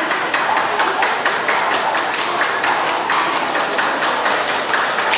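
Spectators clapping: a fast run of sharp, separate claps over a general haze of crowd noise.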